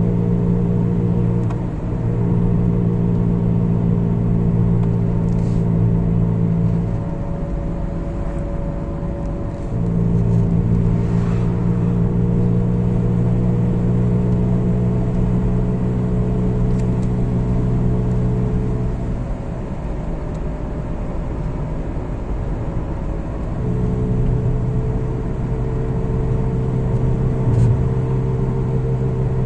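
Steady droning hum from the running gear of a 2003 Seat Toledo diesel while driving, strong in three long stretches with weaker gaps between them. It is a noise the owner finds when turning right, unrelated to the engine: it follows road speed, present even in neutral, dropping lower as the car slows.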